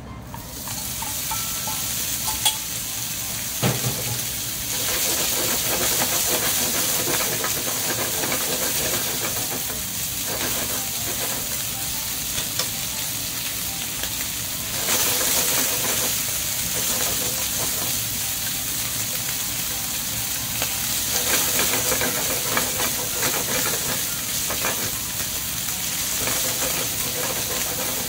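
Bacon strips sizzling in hot olive oil in a frying pan, the sizzle starting as they go in and swelling a few times. Wooden chopsticks click now and then against the pan as the strips are spread and stirred.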